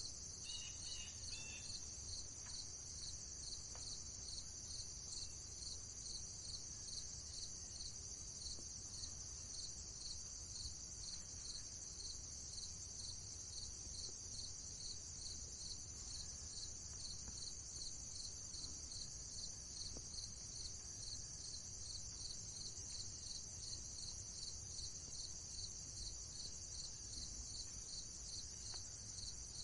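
Crickets chirping in a steady, evenly pulsing chorus, with a few faint bird chirps about a second in and a low background rumble.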